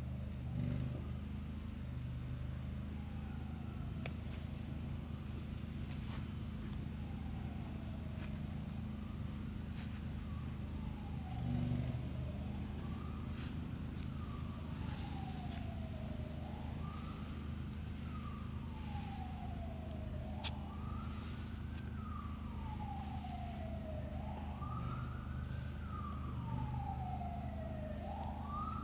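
Emergency-vehicle siren wailing, its pitch sweeping down and back up about every two seconds, growing louder toward the end, over a steady low hum.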